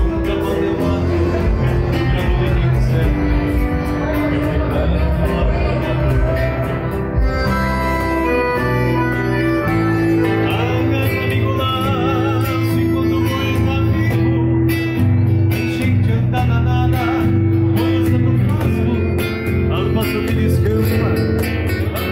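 Live gaúcho folk music: a piano accordion holding sustained chords over a nylon-string classical guitar, with an electric bass underneath.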